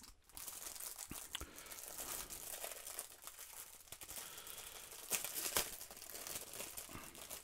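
Clear plastic bag crinkling as it is pulled off a folding keyboard, with louder crackles about five seconds in.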